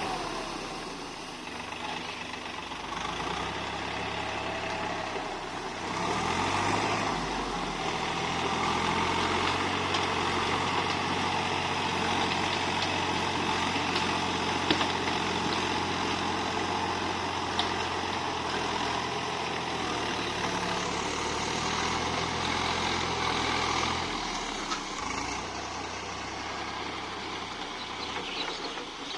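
Tractor engine running steadily as it plows a field. It grows louder about six seconds in and eases back down a few seconds before the end.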